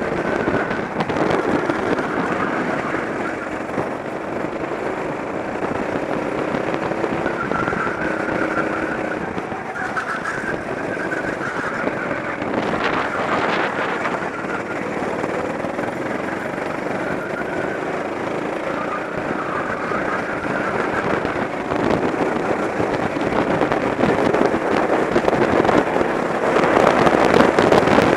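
Rental go-kart engine running under power at track speed, heard from a camera mounted on the kart, mixed with wind rushing over the microphone. It grows louder over the last several seconds.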